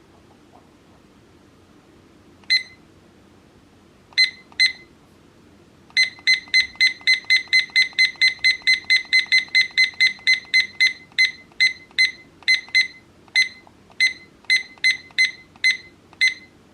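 VZUO digital weather clock giving short, high electronic beeps. One beep, then two, then a fast even run of about three a second for nearly five seconds, then about a dozen more at uneven spacing.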